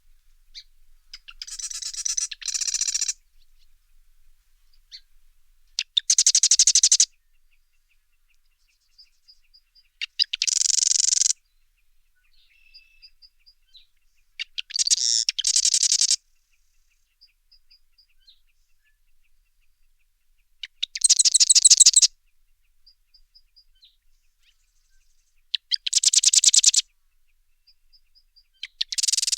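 Wren singing: bursts of rapid, high-pitched trilling, each about one to two seconds long, repeated about every four to five seconds, with faint short chirps in between.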